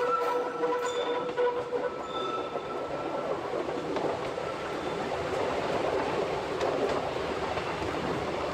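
Odontotos rack railway train running, heard from the cab: a steady rumble of the moving train. At first a whine of a few steady tones sounds over it, fading out about two seconds in.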